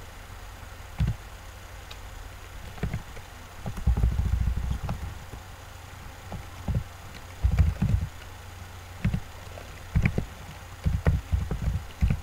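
Irregular dull thumps and knocks, some in quick clusters, over a steady low electrical hum.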